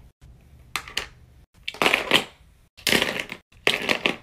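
Plastic Simple Dimple fidget toys, some on keychains, being set into a plastic basket: four or five short clattering knocks and rustles as they are placed.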